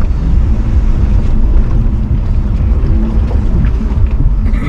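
A 4x4's engine running on a trail, its pitch rising and falling over a heavy low rumble.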